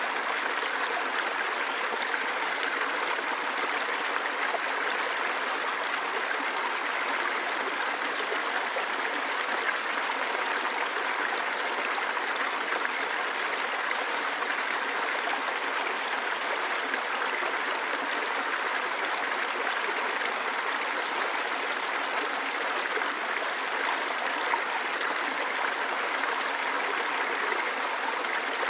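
Running water flowing steadily: an even, unbroken rush with little deep rumble.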